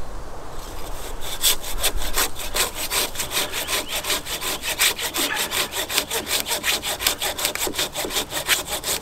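Curved Japanese pruning hand saw cutting down through a green eucalyptus hardwood branch in quick, even strokes, about four or five a second, starting about half a second in. This is the top cut made after an undercut from below.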